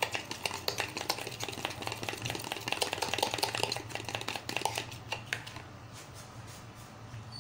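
A fork beating a raw egg in a glass bowl: rapid clicking of the fork against the glass that stops about five seconds in, followed a moment later by a single knock.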